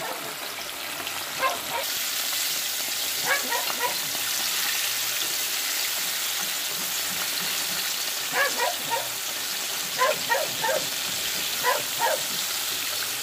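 Flour-coated chicken pieces deep-frying in hot oil in a pot: a steady hissing sizzle. Short high-pitched calls in small clusters sound about five times over it.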